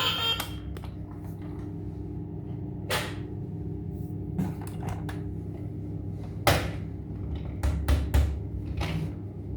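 Handling noise from plastic toy cars: a scattering of separate sharp clicks and knocks over a steady low hum, the loudest about two-thirds of the way in.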